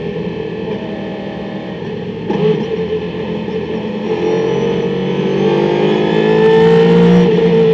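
Race car engine heard from inside the cabin, under load. About two seconds in there is a short sudden change as it downshifts from third to second, then the revs climb steadily as it accelerates out of the corner, peaking near the end and easing off briefly.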